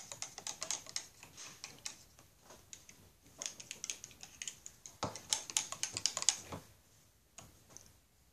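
Rapid light clicks and crackles of a plastic dish soap squeeze bottle being handled and squeezed while soap is poured, in several bursts, the busiest about five to six and a half seconds in.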